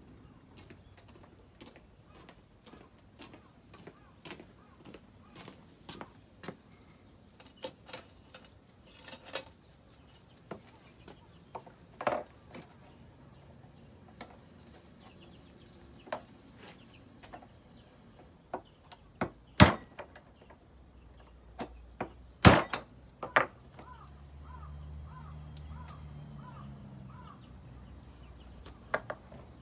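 Small metal-and-plastic caster wheels and hand tools being picked up and set down on a wooden table: scattered light clicks and knocks, with two loud knocks about two-thirds of the way through. A thin, steady high whine runs under most of it.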